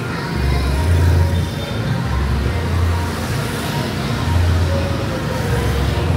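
Busy street din of motorbike and car traffic, with a deep bass line from loud bar music pulsing about every two seconds.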